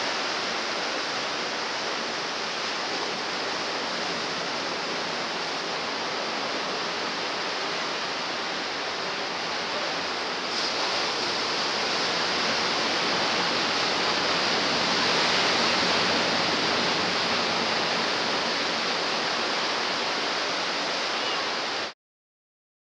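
Steady wash of ocean surf from a south swell breaking on the shore, swelling a little in the middle, then cutting off abruptly near the end.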